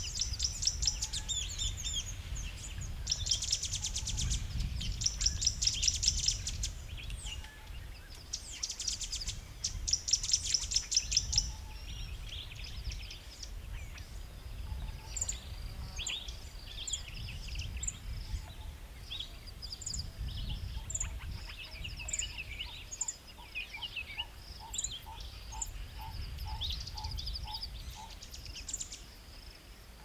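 Several small birds calling at a waterhole. Rapid, high chattering trills come in two loud bouts during the first third, then give way to scattered short chirps. A lower note repeats about twice a second near the end, over a steady low rumble.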